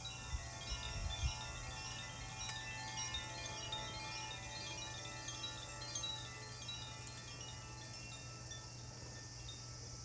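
Sound-healing chimes ringing, many overlapping bright tones struck one after another, densely at first and then thinning out to fewer, lingering notes. A few soft low knocks come near the start, over a steady low hum.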